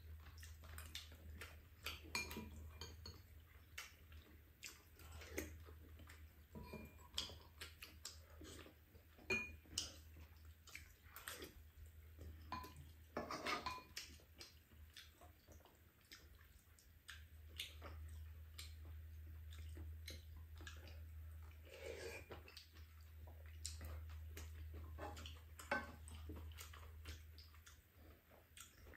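Faint, scattered clinks of spoons against bowls and a frying pan, with quiet chewing, over a steady low hum.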